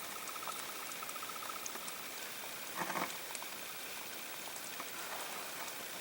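Runoff water running down a road, a steady faint splashing hiss. A rapid string of thin high chirps sounds over it for the first couple of seconds, and a short louder sound comes about three seconds in.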